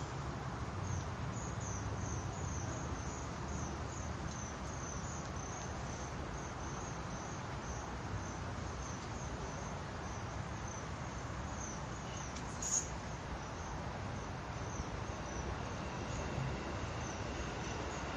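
An insect chirping steadily at a high pitch, about three chirps a second, over a steady outdoor background hiss, with one sharp click about two-thirds of the way through.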